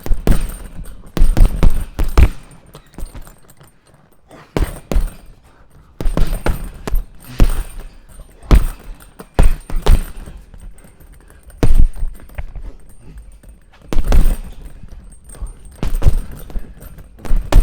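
Punches landing on a punching bag: sharp, loud thuds in irregular flurries of two or three hits, with short pauses between flurries.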